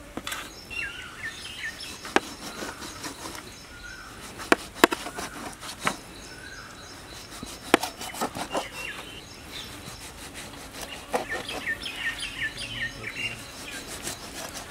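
Knife cutting slashes into a large fish on a steel plate: a dozen or so sharp knocks scattered irregularly. Birds chirp in the background, in a cluster near the start and again late.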